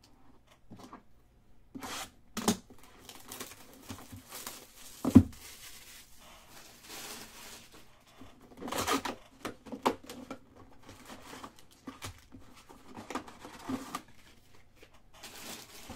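A hobby box of 2018 Panini Certified football cards being unwrapped and opened, with tearing and crinkling of its wrapper and the foil packs inside. One sharp knock comes about five seconds in.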